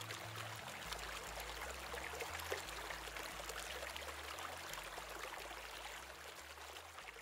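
Water trickling and splashing steadily from a reverse osmosis unit's waste (concentrate) line running onto garden soil, beginning to fade out near the end.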